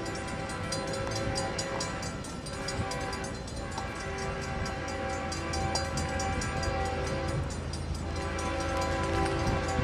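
Approaching BNSF freight train sounding its diesel locomotive horn in long, steady blasts with brief breaks. The GE diesel engine rumble grows louder as the train nears.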